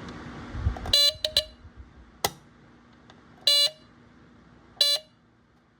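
Square-D Earli-Gard EGD-4B smoke alarm sounding short, buzzy beeps as it is tested by pressing down its cover. The first beep comes about a second in with two quick blips after it, then two more single beeps follow about a second and a half apart, with a sharp click between them.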